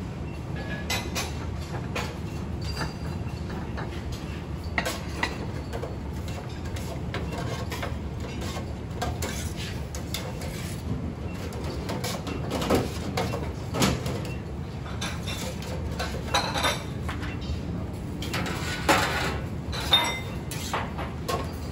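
Kitchen utensil clinks and knocks: a knife on a cutting board, then a metal ladle and the lid of a stainless steel bánh cuốn steamer, scattered over a steady low rumble. The sharpest knocks fall in the second half.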